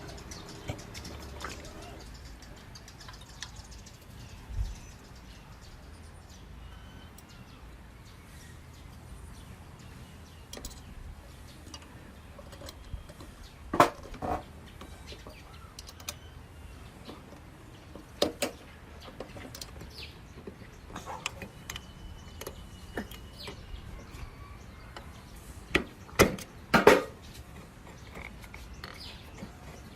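Scattered sharp clicks and clinks from objects being handled, a few of them ringing briefly, with a loud cluster near the end. Faint bird chirps sound in the background.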